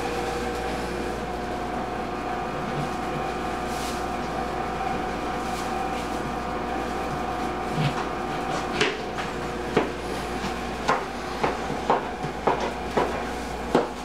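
Kitchen knife cutting through a lemon onto a plastic cutting board: a run of short, sharp knocks of the blade on the board in the second half. A steady hum with several tones runs through the first half and fades out about two-thirds of the way through.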